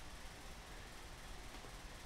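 Faint steady room tone: a low hum under a light hiss, with no distinct sounds.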